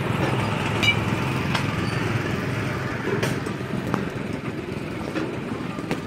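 Steady motor-like drone with a few sharp knocks, one about a second in with a short metallic ring.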